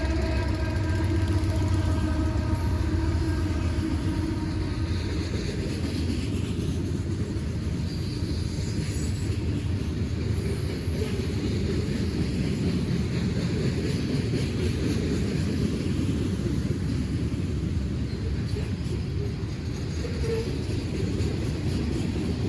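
A train rolling past with a steady low rumble; a held horn-like tone fades out just at the start.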